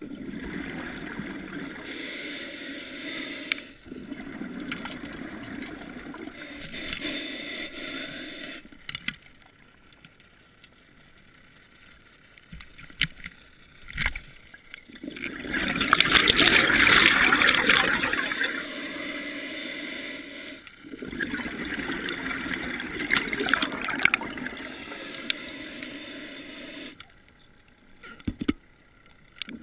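Underwater bubbling and rushing water in bursts several seconds long with quieter gaps between them, loudest in the middle, as a speared fish struggles on the line. A couple of sharp clicks, one midway and one near the end.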